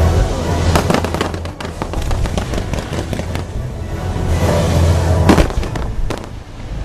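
Fireworks bursting in a show, several sharp bangs over continuous music, the loudest about five seconds in.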